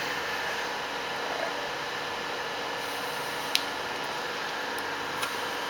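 Steady fan-like hiss of background noise, with one sharp click about three and a half seconds in and a fainter one near the end as the laptop's screen lid is handled.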